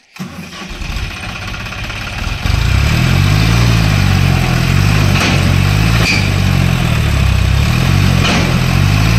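Diesel tractor engine running hard under heavy load. It gets louder about two and a half seconds in and then holds a steady drone whose pitch wavers slightly.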